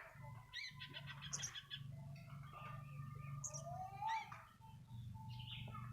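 Sooty-headed bulbul (kutilang) calling: a string of short chirps and trilled notes, with a clear whistled note that rises and falls about four seconds in. A steady low hum runs underneath.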